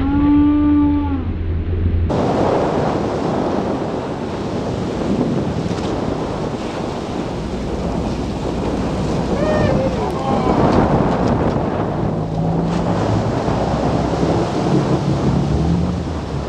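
Wind buffeting the microphone and water surging and rushing around the stern of a sportfishing boat backing down hard, over a low engine drone. A short shout comes near the start and another about ten seconds in.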